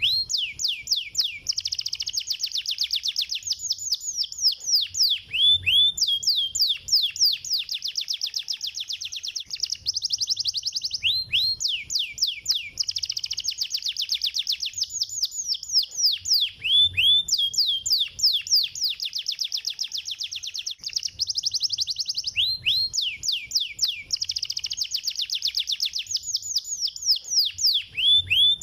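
Canary singing fast, tightly packed trills of quick downward-sweeping notes. The same phrase pattern restarts about every five and a half seconds, as a stimulation song meant to set other canaries singing.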